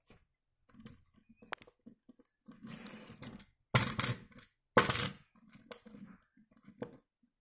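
A die-cast toy car rolled by hand across a wooden surface: its small wheels rumble, with scattered light clicks and knocks. Two louder knocks come about four and five seconds in.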